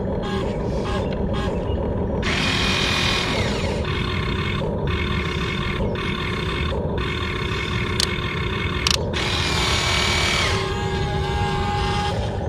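Whine of an RC construction model's small electric motors and plastic gearboxes, running steadily and rising louder and higher in two bursts, about two seconds in and again near nine seconds. Two sharp clicks come just after eight seconds.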